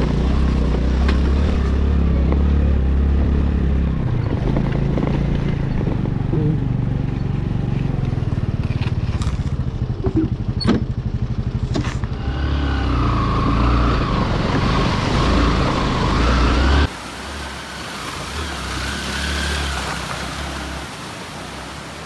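Honda scooter's small engine running while it rides over a rough, rocky track, with a few sharp knocks about ten seconds in and a wavering whine near the middle. About three-quarters of the way through, the sound cuts to a quieter, steady rushing noise.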